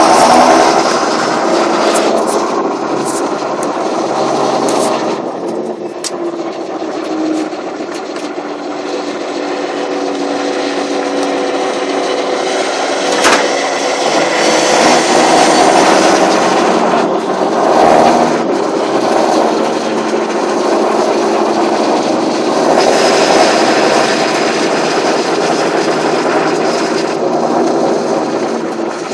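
John Deere 7530 tractor's turbocharged diesel engine running steadily while pulling a loaded trailer, with a high turbo whistle over the engine note and occasional clicks and rattles.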